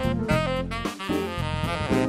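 Live jazz trio: a saxophone plays a melodic line of several changing notes over keyboard and drum kit accompaniment.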